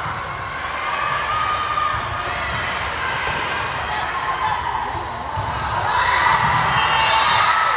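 Indoor volleyball rally echoing around a gym: ball contacts and players' and spectators' voices. It gets louder from about six seconds in as the point is played out.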